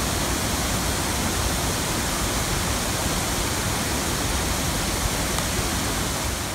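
Swollen creek in flood, its water rushing steadily.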